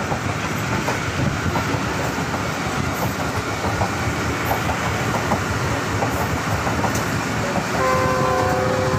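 Passenger train running along the track, heard from inside a coach: a steady rumble of wheels on rails with light clicks. Near the end, a long steady horn blast begins.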